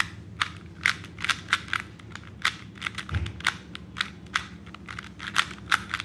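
A 2x2 Rubik's cube being scrambled by hand: its plastic layers turning with sharp clicks, about three a second in an uneven rhythm.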